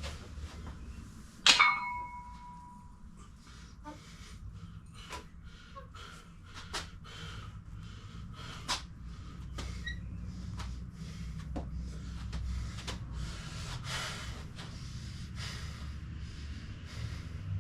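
Metal gym weights clanking: one loud clank that rings on briefly about a second and a half in, then a run of lighter clicks and knocks, over a steady low hum.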